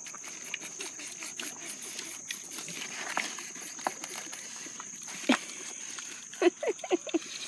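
American Guinea Hogs eating vegetable scraps from a feed pan: a run of wet chewing and snuffling clicks, with short grunts about five seconds in and several more near the end.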